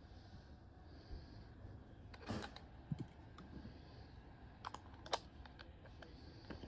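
Faint, scattered clicks and scrapes of a screwdriver working at a small screw in a plastic toy walkie-talkie. The screw is failing to tighten. The two loudest clicks come a little over two seconds in and again about five seconds in.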